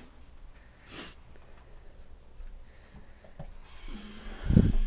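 Bathroom sink faucet turned on near the end, water running into the basin with a steady hiss. A loud low thump comes just before the end.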